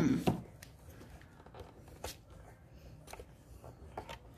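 Small plastic bags of diamond painting drills being handled and rustled on a table, with a loud bump right at the start followed by light clicks and crinkles.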